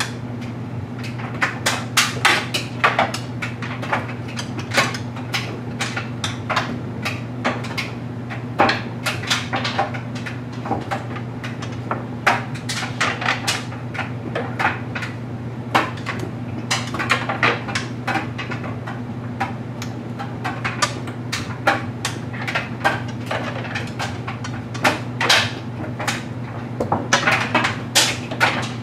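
LG Mega Capacity clothes dryer running with a load of stuffed animals: a steady low hum from the drum and motor under a constant irregular patter of clicks and knocks as the load tumbles and drops inside the drum.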